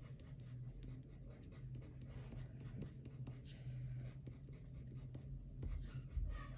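Watercolour pencil scratching on watercolour paper in short repeated strokes, over a low steady hum, with a soft thump near the end.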